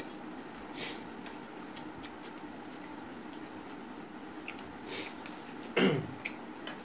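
Eating sounds from a person eating rice and curry by hand off a steel plate: fingers squishing food against the plate, chewing and small mouth clicks. About six seconds in comes a short mouth or throat sound that falls steeply in pitch, the loudest thing here.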